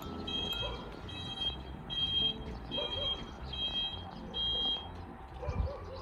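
Reverse warning beeper of a Daepoong EV DE202-AW electric farm utility vehicle, sounding high-pitched beeps a little more than once a second while the vehicle is in reverse. The beeping stops near the end.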